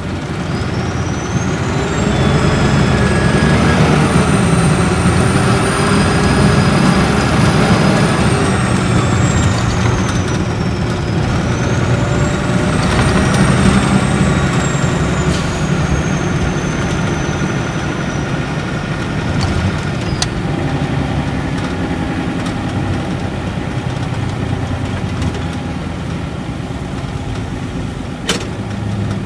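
Interior running sound of a Nissan Diesel Space Arrow RA coach with an inline-six turbo diesel and torque-converter automatic, pulling away and accelerating. The engine drones loudly under a high turbocharger whistle that climbs in pitch, dips about ten seconds in and climbs again, then slowly falls away as the coach settles into a cruise.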